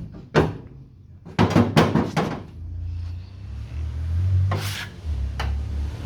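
Sharp knocks: one, then a quick run of four or five, then two more, from tools striking the dented lower rear quarter panel of a Mk2 Ford Escort during panel beating. A low rumble runs underneath and grows toward the end.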